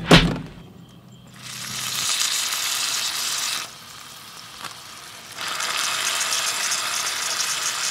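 Meat sizzling in a frying pan on a camp stove while it is stirred. There is a single thud at the very start. The sizzle comes in about a second and a half in, drops back for a couple of seconds midway, then returns.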